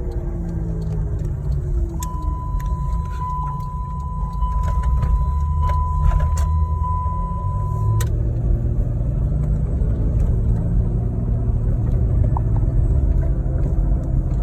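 2007 Saturn Vue 3.5L FWD driving with a low, speed-related hum that grows louder from about four seconds in. The owner has not found its cause even after replacing the CV shafts, intermediate shaft and hubs. A steady high beep sounds from about two seconds in and lasts about six seconds, with a few clicks during it.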